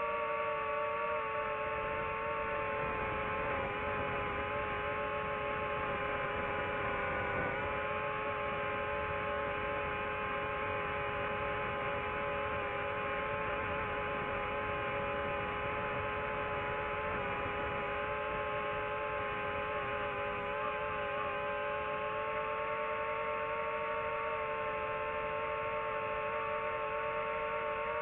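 DJI FPV drone's motors and propellers whining steadily in flight, several tones held at a near-constant pitch with slight wavers as the throttle shifts.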